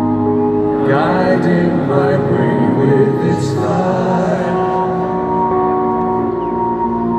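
Live concert music: sustained keyboard chords held steady throughout, with male voices singing over them from about a second in until about four and a half seconds in.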